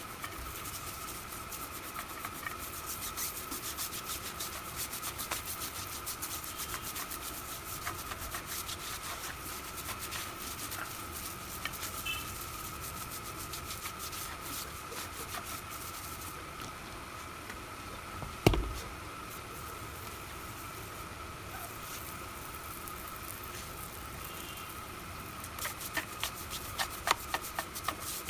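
Stiff plastic-bristled hand brush scrubbing a soapy steel car wheel and tyre in quick rasping strokes, which grow louder and sharper near the end. A single loud knock about two-thirds of the way through, and a thin steady whine in the background.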